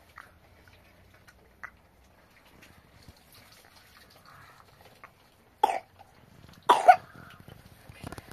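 Water poured from a jug over a child in a metal basin, with faint trickling and small knocks, then two sharp coughs about a second apart, the second the louder.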